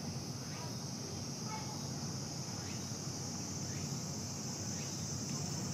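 A chorus of cicadas buzzing steadily as one continuous high drone, edging slightly higher in pitch, over a low background rumble.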